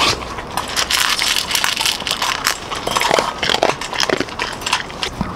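Dog gnawing and chewing on a dog chew: a steady run of irregular crunching clicks.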